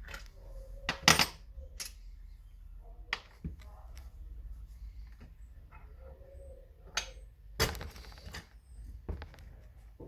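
Scattered metallic clicks and clinks of small parts and tools being handled, with a sharp knock about a second in and a short clatter near the eight-second mark.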